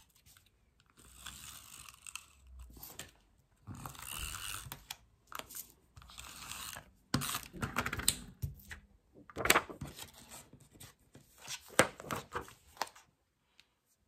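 Double-sided tape runner drawn across card stock in a few strokes, each pass a rasping, ratchety whirr. From about halfway, the card and paper are handled and pressed down with sharp rustles and clicks.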